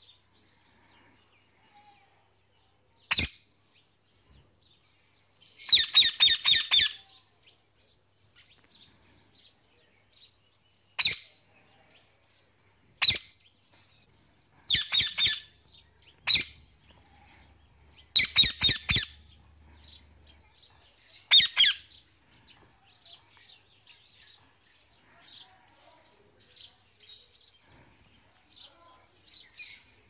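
Indian ringneck parrot giving loud, sharp calls, some single and three in quick runs of five or six, with fainter chirps in between. It is calling to other parrots.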